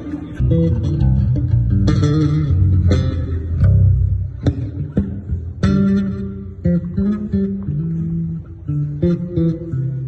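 Amplified electric bass guitar playing a line of low plucked notes during a sound check, with sharp percussive hits between the notes.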